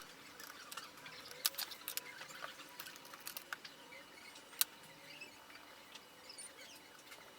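Faint, scattered small clicks and taps of a laptop being handled, with a sharper click about a second and a half in and another a little past four and a half seconds.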